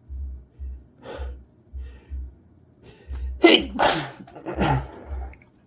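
A man sneezing in a fit: a few sharp breaths in, then loud sneezes about three and a half and four and a half seconds in.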